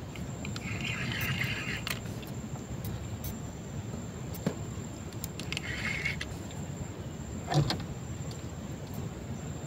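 Handling noise from a fishing rod and spinning reel in a wooden boat: a low steady rumble, two short spells of soft whirring from the reel, a few light clicks, and one sharper knock about three-quarters of the way through.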